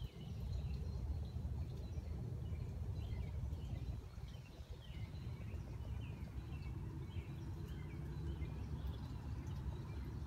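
Small songbirds chirping, a run of short, quick high notes repeated through the middle of the clip, over a steady low rumble.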